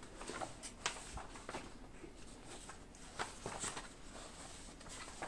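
Large paper plan sheets being handled and turned over: faint, scattered rustling with a few light taps.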